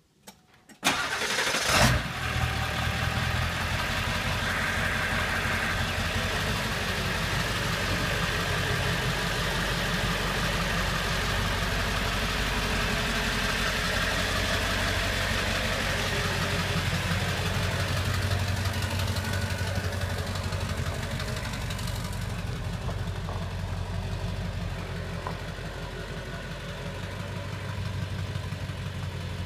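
Ford 7.3 L Power Stroke V8 turbo diesel running at a steady idle. It comes in abruptly about a second in, with a sharp knock near two seconds. Over the last several seconds the engine grows quieter and duller as the truck drives off.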